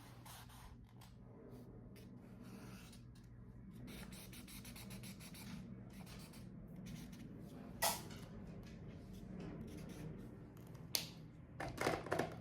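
Marker nib rubbing across paper in repeated colouring strokes, filling in a skin tone, with a sharp tap about eight seconds in and a few more taps near the end.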